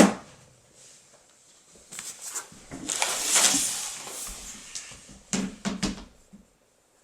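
Handling noises: a loud sudden sound at the start, a few light clicks, a hissy rustle lasting about a second and a half, then a quick run of sharp knocks near the end.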